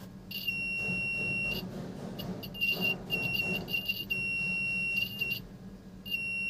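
Piezo buzzer on a homemade continuity/component tester giving a steady high-pitched beep each time the probes make contact, showing the circuit is closed. It sounds on and off several times: a long beep, a brief chirp, a longer stretch broken by short gaps, and a last beep near the end.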